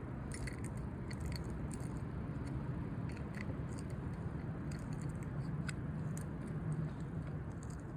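Scattered small metal clicks and scrapes from handling the parts of a steel trailer hitch lock, over a steady low background hum.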